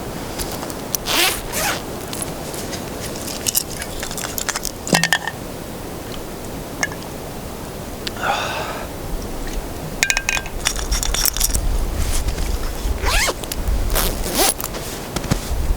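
Several short scraping strokes and a few sharp clicks, with a low rumble in the last few seconds.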